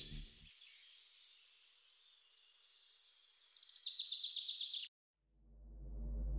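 Faint outdoor ambience with birds chirping. A fast, high, pulsing chirr builds about three seconds in and cuts off abruptly near five seconds. A low hum then swells up near the end.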